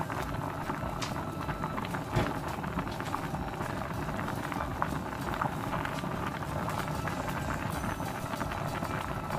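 Thick ground-soybean stew (kongtang) boiling hard in a pot, a steady bubbling with many small pops and one louder pop about two seconds in.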